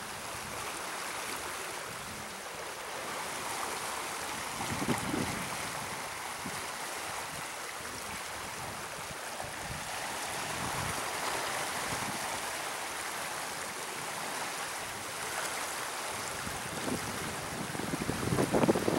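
Turbulent water rushing and churning below the gates of a concrete canal, a steady rushing noise. Low gusts of wind buffet the microphone about five seconds in and again near the end.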